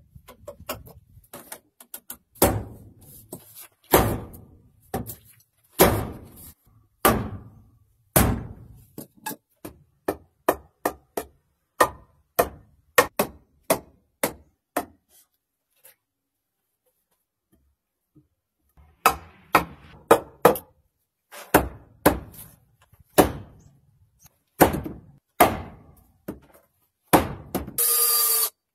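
Hammer blows on wood, struck one at a time at an uneven pace, with a pause of a few seconds midway. A short harsh noise about a second long comes near the end.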